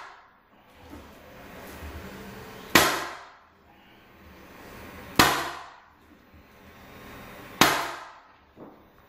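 Pneumatic flooring nailer firing three times, about two and a half seconds apart, driving nails through the tongues of prefinished hardwood boards. Each shot is a sharp bang that dies away over about half a second.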